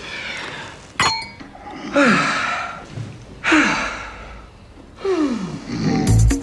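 A man snoring in deep sleep, three long breaths each sliding down in pitch, about a second and a half apart. A glass clinks once about a second in, and music with a swoosh starts at the very end.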